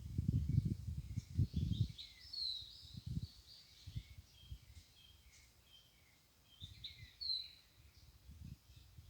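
Small birds chirping in many short, high notes, over low thumps and rustles that are loudest in the first two seconds.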